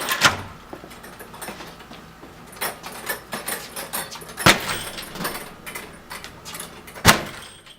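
A front door secured with a strike plate lock being struck by a swung 90-pound bag: heavy thuds about two seconds apart, the loudest near the middle and near the end, with the door and its hardware rattling between blows.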